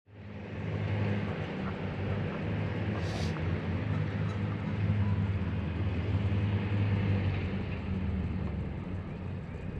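A steady low rumble of open-air ambience that fades in at the start and holds on, with a short high-pitched chirp about three seconds in.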